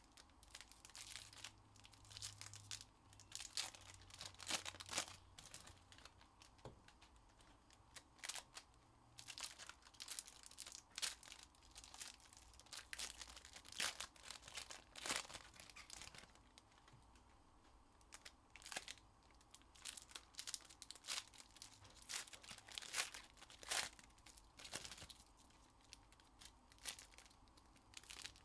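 Foil wrappers of Panini Donruss basketball card packs crinkling and tearing as packs are ripped open, in irregular bursts of sharp crackles.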